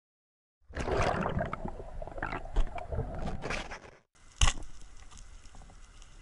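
Underwater noise of water movement and knocks, then one sharp snap about four and a half seconds in as a band-powered speargun fires, followed by quiet underwater hiss with faint crackling.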